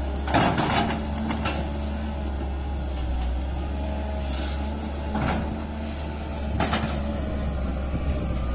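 Caterpillar 320C excavator's diesel engine running steadily under working load as it digs, with several short clanks and scrapes from the bucket working through the dirt, the loudest about half a second in.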